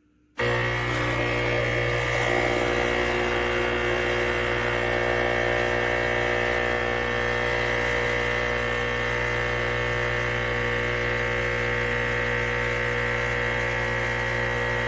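ChefWave Káva capsule espresso machine's pump running steadily while the brew button is held, dispensing water to set a custom cup volume. It starts abruptly about half a second in as a loud, even mechanical hum with a steady whine.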